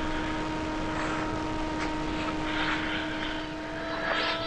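ZOHD Alpha Strike flying wing's 6S brushless electric motor and propeller buzzing in flight, the sound swelling and fading several times as the plane moves about.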